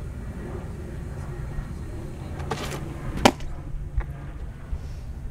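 A baseball smacks into a leather glove with one sharp pop a little past three seconds in. A fainter knock follows about a second later, over a steady low rumble.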